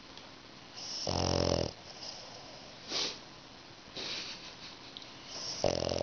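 Flat-faced French bulldog snoring in its sleep: a loud buzzing snore about a second in and another near the end, with softer breaths between.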